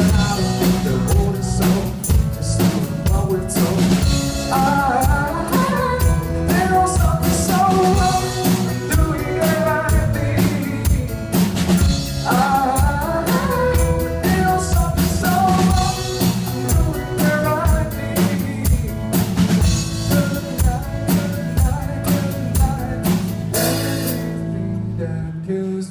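Live band playing a pop-rock song: a lead singer over a drum kit with steady kick and snare. Near the end the drums and cymbals drop out briefly.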